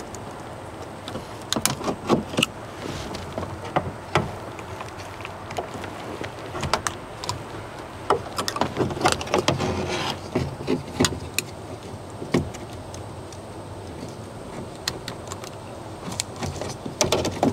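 A screwdriver prying at a 1992 GMC 3500's dash-top speaker and its plastic dash, with scattered clicks, knocks and scrapes. The old speaker is worked loose and lifted free near the end.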